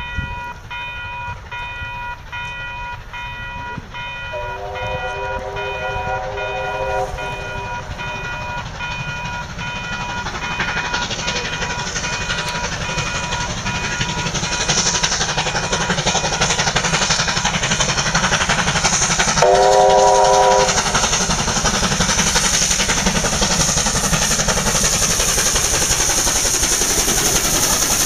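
NSWGR C38-class steam locomotive 3801 sounds a long whistle blast about four seconds in and a short blast a few seconds before the end, as the train's running rumbles steadily louder until it passes close by. Pulsing electronic warning bells at the level crossing ring and stop about eight seconds in.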